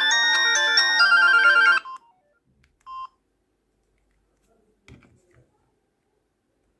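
Mobile phone ringtone: a melody of electronic tones that stops abruptly just under two seconds in, followed about a second later by one short beep and then a faint click.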